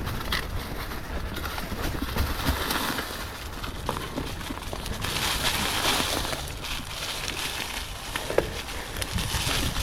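Mountain bike rolling down a dirt trail: a steady rumble of tyres and rushing air, with a few short knocks and rattles from the bike over bumps.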